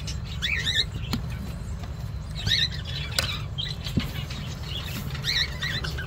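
Cockatiels in a nest box giving short, high, wavering squeaky chirps in four brief bursts, with a few light knocks and a low rumble from handling.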